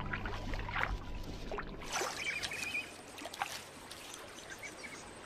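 Light water splashing and dripping, with small scattered clicks of twigs, as a platypus gathers sticks and leaves for its nest.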